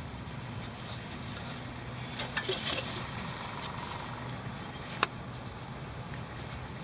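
Repair wrap crinkling and rustling as it is stretched tight around a CV boot, with one sharp click about five seconds in, over a steady low hum.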